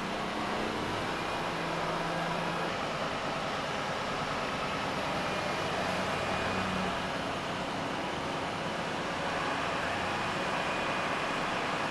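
Steady outdoor background noise with a faint, uneven engine hum, like distant vehicles or machinery running.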